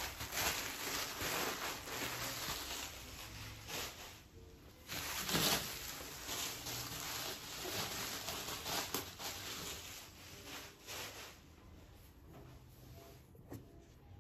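Bubble wrap and plastic packaging rustling and crinkling as it is handled and pulled away. It is loudest about five seconds in and dies down after about eleven seconds.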